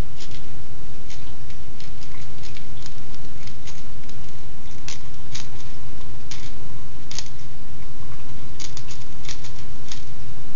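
Irregular light clicks and ticks, sometimes several in quick succession, over a steady low hum.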